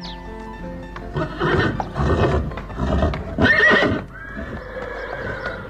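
A horse neighing: a long whinny made of several shaky pulses from about a second in to about four seconds in, loudest just before it stops.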